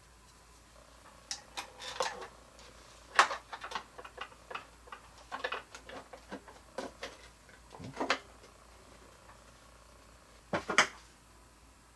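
Scattered clicks and knocks of hard figure-statue parts being handled and fitted together, with the loudest knocks about three seconds in and again near the end.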